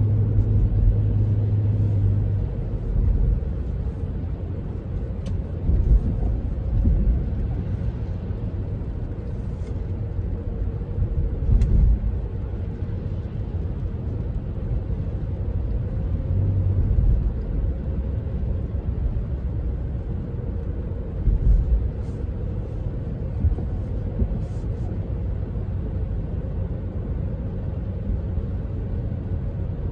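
Car cabin road noise while driving on a wet road: a steady low rumble of tyres and engine, with a few brief louder thumps from bumps in the road.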